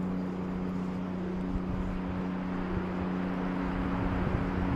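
Steady motor drone holding one constant pitch, over an even rushing noise.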